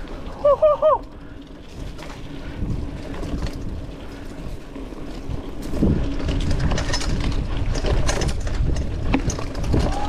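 Mountain bike rolling along a dirt forest trail: a steady rumble of tyres and wind on the microphone, with scattered rattles and knocks from the bike, getting louder about halfway through. Near the start, three quick pitched chirps.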